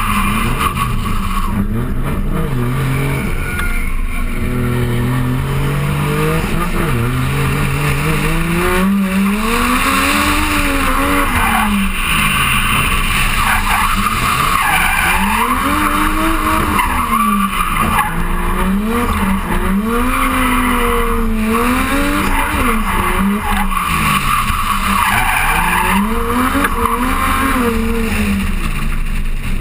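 Race car engine revving hard, its pitch rising and falling about every two seconds as the car is thrown through the bends, with tyres squealing as it slides.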